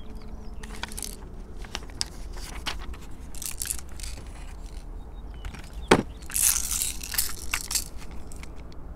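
Close handling noise: paper crackling and rustling, with one sharp click about six seconds in, then more crackling as things are shifted in the hands.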